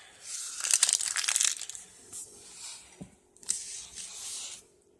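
Plastic food packaging crinkling and crumpling as it is gathered up for the garbage: a loud crackling burst about a second long near the start, then a few shorter, quieter rustles.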